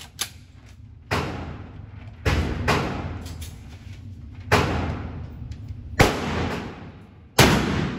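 Gunshots at a shooting range: about six shots fired at an uneven pace, one to two seconds apart. Each is followed by a long echoing tail.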